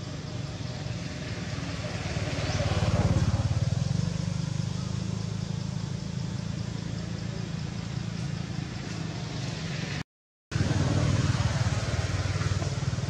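A motor engine running steadily, swelling louder about three seconds in and again near the end, with a half-second dropout between.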